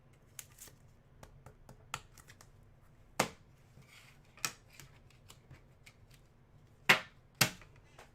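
Trading cards and their packaging being handled on a table: a run of sharp snaps and clicks, the two loudest close together near the end.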